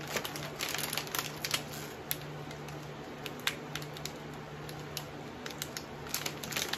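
Plastic snack bag crinkling in the hands as it is squeezed, with many irregular sharp crackles.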